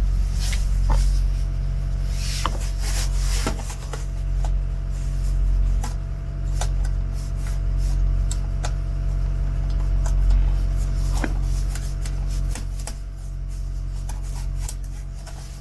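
Ford 6.0 Powerstroke turbo-diesel V8 running steadily while the truck drives, heard from inside the cab, with scattered clicks and rattles from loose parts in the cab.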